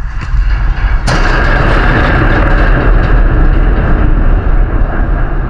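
A sudden loud bang about a second in, then a few seconds of loud rattling and rumbling noise, as a football strikes the goal netting near the microphone.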